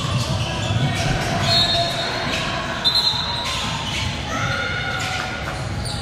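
Indoor game in a gym: sneakers squeak on the court twice and a ball bounces, over spectators' chatter echoing in the hall.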